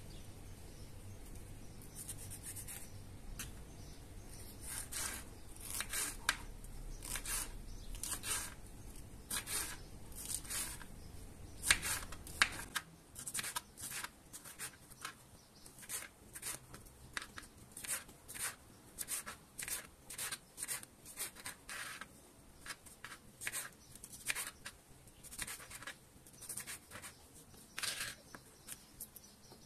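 Kitchen knife slicing bell peppers into strips on a plastic cutting board: a run of crisp cuts, each with a tap of the blade on the board, about two a second. A low hum underneath stops about halfway through.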